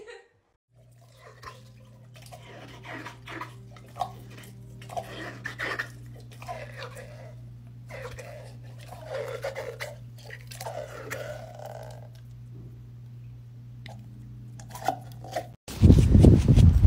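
A dog chewing and smacking its mouth on something, with small clicks over a steady low hum. About a second before the end, a louder scraping and crunching of snow starts suddenly.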